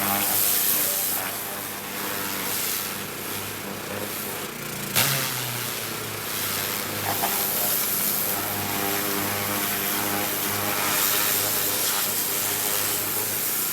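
Pressure washer running: a steady low motor hum that pulses slightly, under the hiss of the water jet spraying the truck's frame. There is one sharp knock about five seconds in.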